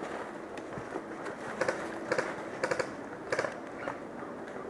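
Airsoft guns firing single shots: a handful of sharp clicks, unevenly spaced.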